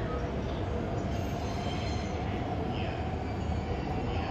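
JR 205 series electric commuter train pulling away at low speed: a steady rumble from the running gear with a single tone that rises slowly in pitch.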